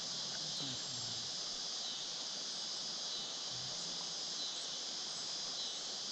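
Steady, high-pitched chorus of insects such as crickets.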